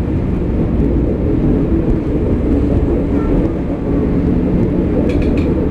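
VT98 Uerdinger railbus running along the track, heard from inside the railcar: its underfloor diesel engine gives a steady low rumble. A few short sharp clicks come near the end.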